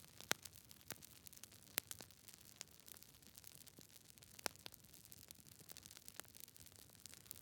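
Wood fire crackling: irregular sharp pops and snaps over a faint steady hiss, with the loudest pops a moment after the start, near two seconds in, and about four and a half seconds in.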